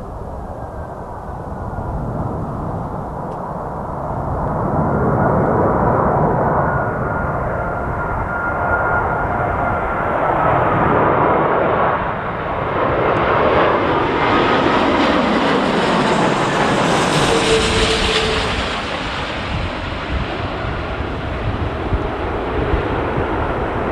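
Airbus A380-841 passing on its landing approach, the jet noise of its four Rolls-Royce Trent 970 engines with a steady fan whine. The roar swells over several seconds, is loudest and hissiest about two-thirds through as the aircraft passes, then eases off.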